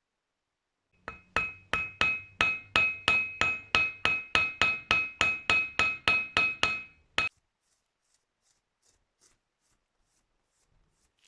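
Rapid hammer blows on metal, about three a second, each ringing with a clear metallic tone. The blows stop abruptly after about six seconds.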